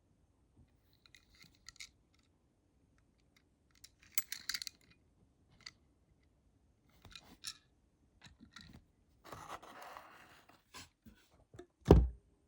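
Handling of a small die-cast toy car and its cardboard and plastic packaging: scattered small clicks and crinkles, a brief rustle about three-quarters of the way through, and a loud low thump near the end.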